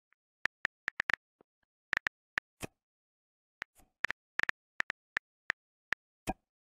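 iPhone on-screen keyboard click sounds as a message is typed: a run of short, sharp taps at an uneven pace, some in quick clusters, with dead silence between them.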